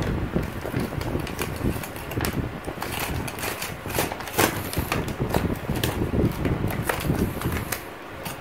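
Foil-lined bubble wrap and paper wrapping being peeled off and crumpled by hand, crinkling and crackling irregularly.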